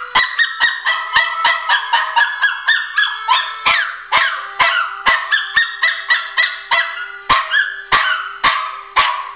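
Harmonica played in a chugging blues rhythm, about two to three sharp pulsed notes a second, with a Pomeranian howling along to it.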